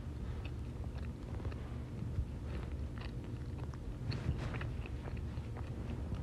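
Close-miked eating sounds: chewing with scattered small clicks and crackles, over a steady low hum.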